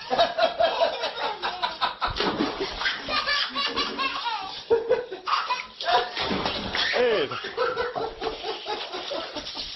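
People laughing hard, in runs of short repeated bursts.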